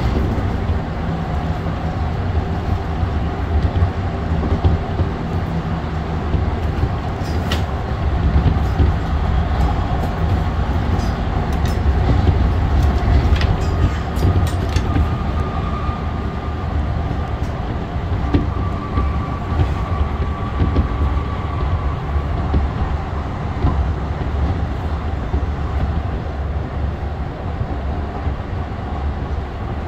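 Interior running noise of an AREX airport railway electric commuter train at speed: a steady low rumble from the wheels on the track, with a few sharp clicks and a faint high whine that comes in about halfway through.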